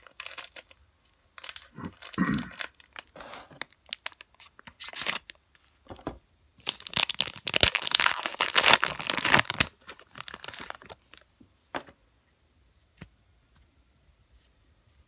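Foil-lined Allen & Ginter baseball-card pack wrapper torn open and crinkled by hand, in crackly bursts with the longest, loudest stretch in the middle. The crackling thins out near the end to a few faint clicks as the cards come out.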